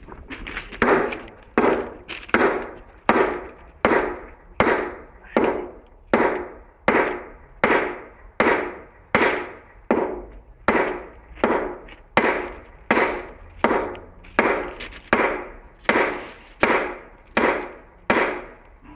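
Steady, regular hammer blows on a steel rail at a fresh weld, a little over one a second, each with a short ring.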